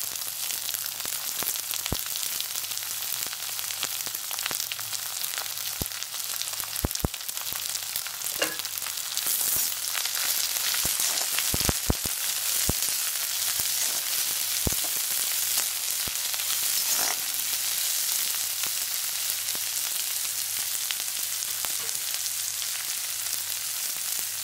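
Sliced onions and garlic sizzling in hot oil in a wok, a steady high hiss. A spatula stirs them and knocks against the pan with sharp clicks now and then, most of them through the middle.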